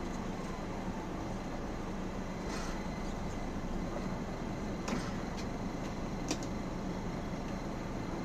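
Mercedes-Benz O405N city bus's diesel engine running steadily inside the cabin as the bus rolls to a stop and idles in traffic. A short hiss and a couple of sharp clicks sound partway through.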